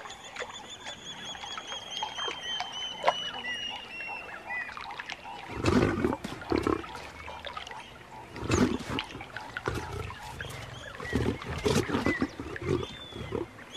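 Lioness snarling and growling in three loud, rough bursts: about six seconds in, a little past the middle, and near the end. Before them, a thin high call falls slowly in pitch over the first few seconds.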